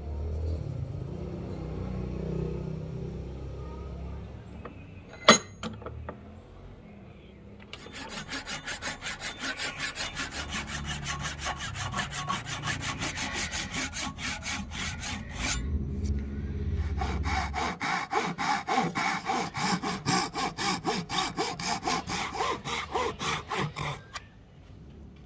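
Fine-toothed hand saw cutting into the end of a black and white ebony axe handle, with rapid back-and-forth strokes in two long runs and a short break between. A single sharp knock comes about five seconds in, before the sawing starts.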